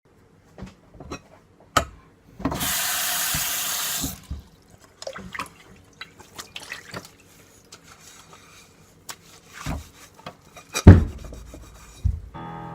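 A water tap running into a sink for about a second and a half, among scattered light clicks and knocks, with a loud thump near the end.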